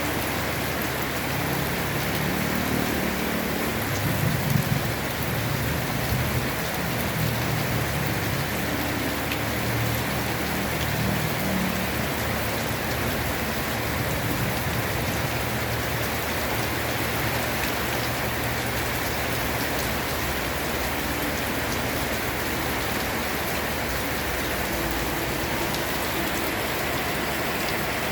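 Heavy rain falling steadily. A low rumble sounds under it in the first half, loudest about four to five seconds in.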